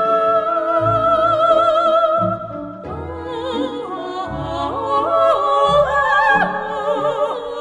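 Background music: an operatic singing voice with wide vibrato holds one long note, then moves through several notes over instrumental accompaniment.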